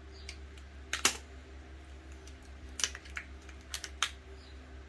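Small salvaged electronic parts being handled and set down: about five sharp clicks and light knocks, spaced irregularly, over a steady low hum.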